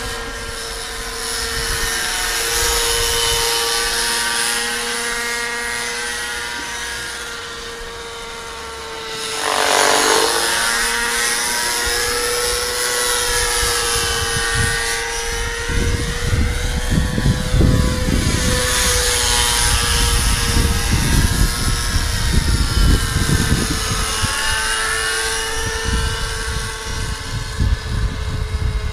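Radio-controlled scale Bell 47G model helicopter flying overhead: a steady high whine from its motor and rotors, dipping sharply in pitch and coming back louder about ten seconds in, then wavering as it moves around. A low gusty rumble joins from about halfway.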